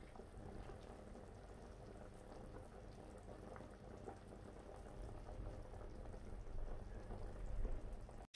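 A pot of pork broth boiling, faint bubbling that grows a little louder over the last few seconds.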